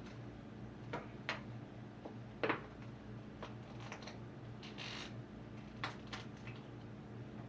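A few scattered light clicks and taps of small objects being handled, with a short hiss about five seconds in.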